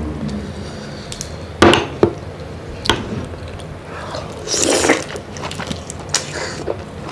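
Close-up eating sounds of shellfish: sharp cracks of prawn and crab shell being broken and bitten, the loudest about a second and a half in, with a longer noisy crunching stretch about halfway through.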